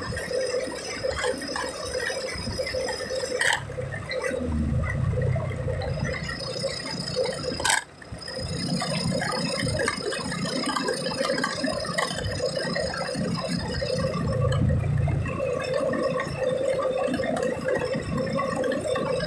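Road and engine noise inside a moving car's cabin, with two sharp clicks, one about three and a half seconds in and one near eight seconds.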